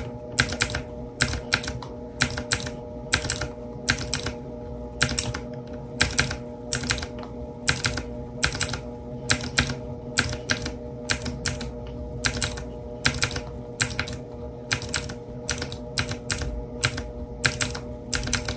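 E-Element Z-88 mechanical keyboard with blue clicky switches clacking under fast, irregular keystrokes, often several clicks in a quick cluster.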